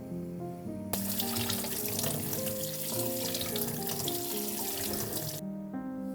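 Kitchen tap turned on about a second in, water running into the sink for about four and a half seconds, then shut off abruptly. Soft background music plays throughout.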